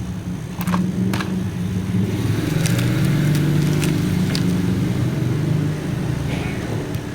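A motor vehicle engine running, louder through the middle and easing off near the end, with a few sharp clicks.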